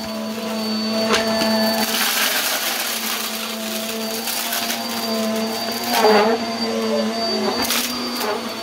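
Bissell Helix bagless upright vacuum running steadily with a high whine, pushed over a rug. Sharp crackles and rattles come as debris is sucked up into the bin, the loudest about six seconds in and again near the end.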